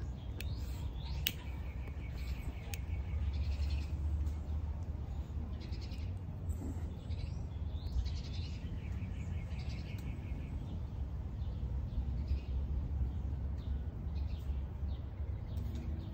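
Birds chirping in short rapid trills, on and off, over a low steady rumble. A few sharp clicks in the first three seconds come as a tobacco pipe is relit with a lighter.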